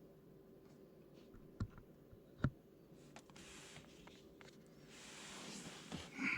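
Faint handling noises as an M Performance stainless-steel and rubber brake pedal cover is worked onto the brake pedal: two sharp clicks about one and a half and two and a half seconds in, then soft rubbing and scraping.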